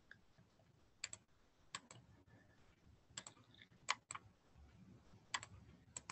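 Computer mouse clicking faintly: about six pairs of sharp clicks, roughly one pair a second, as answers are picked and Next is pressed.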